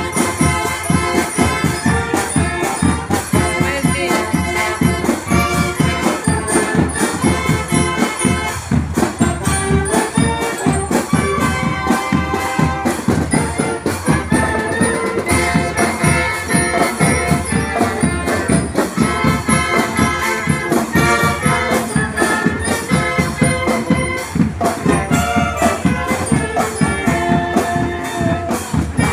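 School marching band playing: quick, steady drumming with a melody over it, with no break.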